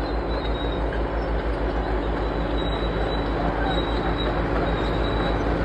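Freight train cars being pulled along the rails: a steady rolling rumble with a thin, high-pitched wheel squeal over it and a low regular throb underneath.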